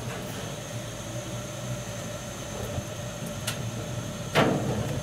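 Lynx natural gas grill burners running with a steady hiss and hum. A faint click about three and a half seconds in, then a short, louder thump just after, after which the sound stays somewhat louder.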